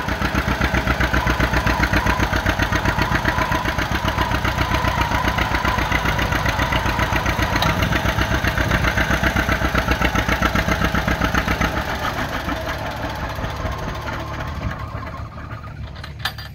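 1958 John Deere 620's two-cylinder engine running with an even pulsing exhaust beat as the tractor drives, getting quieter over the last few seconds.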